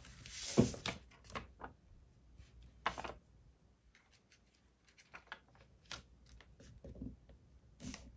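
Paper and vellum being handled and pressed flat on a journal page by hand: soft rustles with scattered light taps and clicks. The loudest rustle comes about half a second in, and a sharp click a little under three seconds in.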